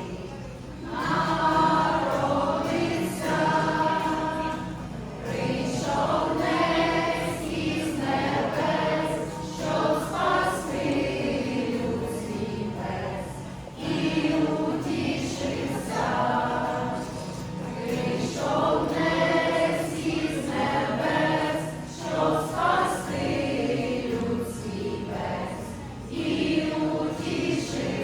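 A choir of voices singing a Ukrainian Christmas carol (koliadka) in sustained phrases of a few seconds each.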